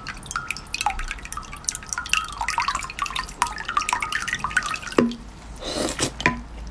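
Water trickling from a plastic bottle over a block of frozen red ice on a spoon and dripping into a glass mug below, a quick patter of drips. About five seconds in the pouring gives way to a sharp click, a short hiss and another click.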